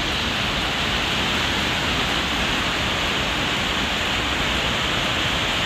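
Niagara Falls: a steady, unbroken rush of falling water.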